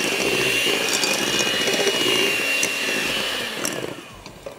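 Electric hand mixer running, its beaters whisking thin batter in a glass bowl, with a steady high whine. The mixer switches off about three and a half seconds in.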